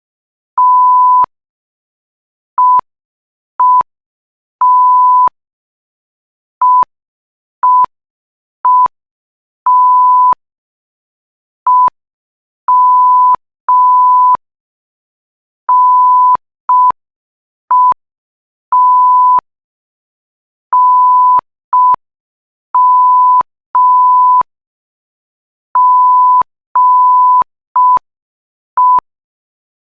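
Censor bleep tone keyed on and off as Morse code, a string of short and long beeps at one steady pitch standing for dits and dahs, with a faint click at each start and stop.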